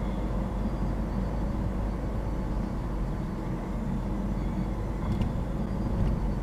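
Steady road and engine noise inside a car cabin, cruising at about 35 mph.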